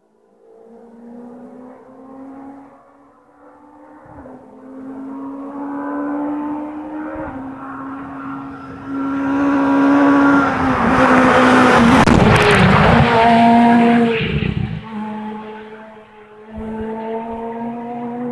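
Ford Fiesta S2000 rally car's 2.0-litre four-cylinder engine at full throttle, approaching with its note climbing and dropping through gear changes. It passes loudest from about nine to fifteen seconds in, with heavy tyre and road noise, then drops back to a steadier, quieter engine note as it pulls away.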